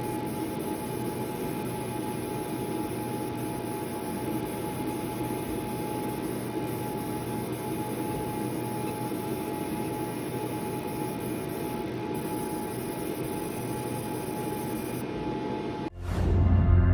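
Laser marking machine running steadily with an even whir and a faint constant whine. Near the end it cuts off abruptly and a much louder sound with heavy bass takes over.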